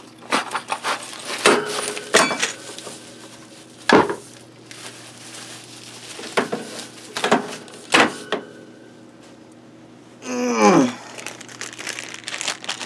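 Unpacking noise from a cardboard box and plastic packaging: scattered sharp clicks and knocks with crinkling, and about ten seconds in a short squeak that falls steeply in pitch.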